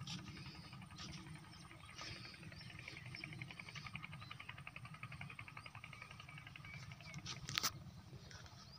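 Faint outdoor background with distant small bird chirps and a rapid, faint trill over a low rumble. One sharp click comes near the end.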